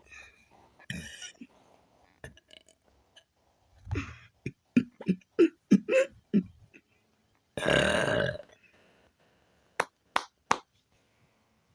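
A person burping on command: a run of short burps about four seconds in, then one longer, louder burp near the end. A few sharp clicks follow.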